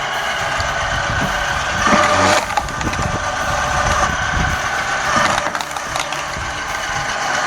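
Homemade electric log splitter running with a steady motor hum while logs crack and split apart on its blade, which is made from a car leaf spring. The splitting is loudest about two seconds in and again just after five seconds.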